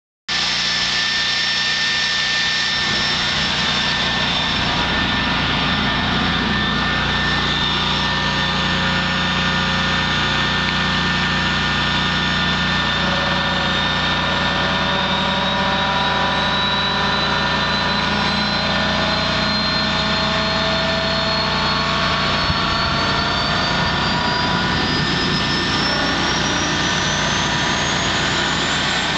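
Pratt & Whitney Canada PT6A-50 turboprop engines of a de Havilland Canada DHC-7 running steadily during engine start-up. A high turbine whine climbs slowly in pitch and then more quickly near the end as an engine spools up.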